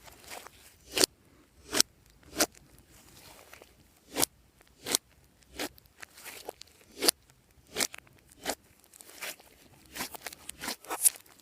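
Slime being worked by hand, giving sharp crackling pops at irregular intervals, about one or two a second and coming faster near the end.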